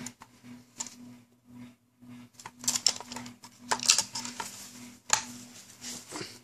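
Light clicks and small metallic rattles from handling a rifle and its sling hardware, sharpest about two and a half, four and five seconds in, over a faint low hum.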